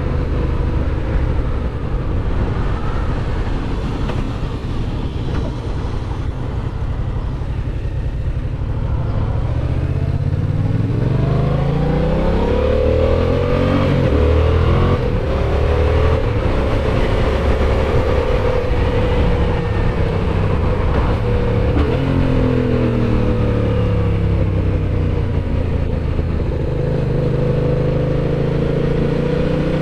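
Yamaha MT-07's parallel-twin engine heard from the rider's seat while riding. It runs fairly steady at first, then its revs rise and fall several times through the middle with gear changes, and it pulls hard again near the end.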